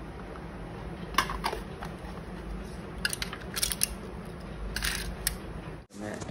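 Small household items being handled and moved on a tabletop: a few light clicks and crinkly rustles, cutting off abruptly near the end.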